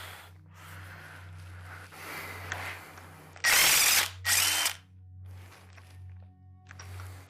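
Handheld power tool, a drill or driver, run in two short bursts of about half a second each, a few seconds in, spinning out bolts on a Chevy 350 small-block engine. Quieter clinks and tool handling come before and after, over a steady low hum.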